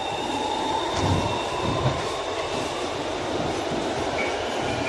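BTS Skytrain electric train pulling out of an elevated station, heard from inside the car: a steady rumble with a whine that rises slowly in pitch as the traction motors speed the train up.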